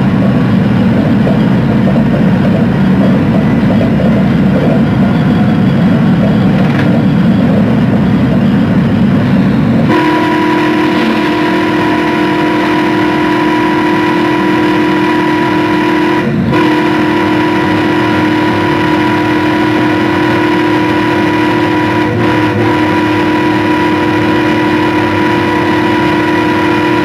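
FrontRunner commuter train heard from its cab: a low running rumble on the rails, then about ten seconds in the train horn sounds and is held as a steady multi-note chord, broken off only twice for an instant.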